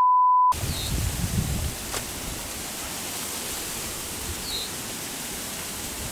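A censor bleep, a steady one-pitch tone that cuts off about half a second in, then a steady rushing noise of water and wind on the microphone. A low rumble runs under it for the first second or so, and a few faint high chirps come through.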